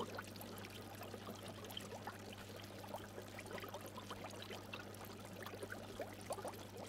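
Faint water trickling and bubbling, with many small, quick bubble blips over a steady low hum.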